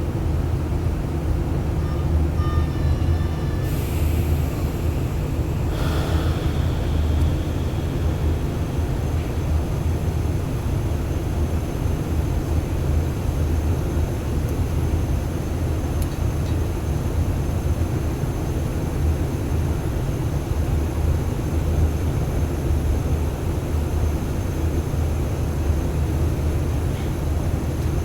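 Steady low rumble of running machinery with a constant hum, unchanging throughout, with a few brief faint higher sounds early on.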